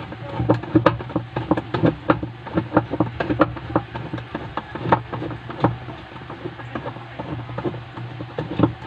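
Noisy washing machine running: a steady low hum with irregular rattling knocks.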